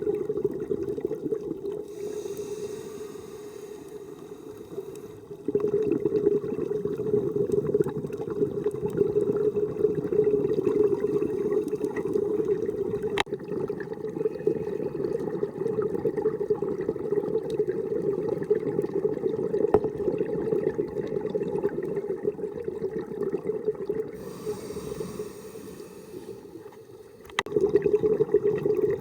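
Underwater sound of a scuba diver's regulator breathing: a long rumble of exhaled bubbles, broken twice by a quieter stretch with a faint hissing inhale, about two seconds in and near the end.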